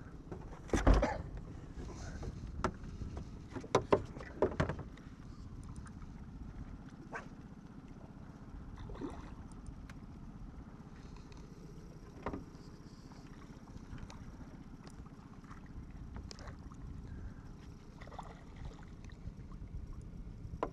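Sharp knocks and clatters on a small boat as fishing gear is handled, several in the first five seconds and a few scattered after, over a steady low rumble.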